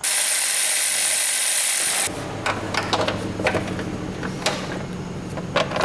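Air ratchet running for about two seconds with a loud hiss, spinning out a 10 mm timing-cover bolt, then stopping abruptly. After it, scattered metal clicks and clinks from handling tools and parts over a low steady hum.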